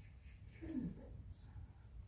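A small black puppy being petted gives one short, low grunt that falls in pitch, a little over half a second in.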